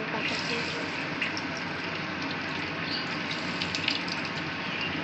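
Cornflour-coated chicken pieces frying in hot oil in a pan: a steady sizzle with scattered small crackles and pops as pieces are added.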